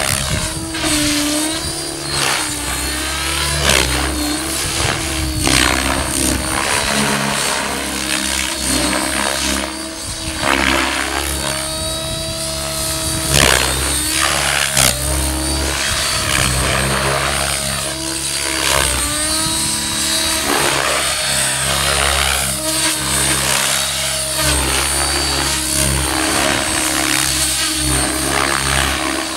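Blade 700X electric RC helicopter flying 3D aerobatics, its rotor blades and motor whine sweeping up and down in pitch again and again as it flips, rolls and passes by.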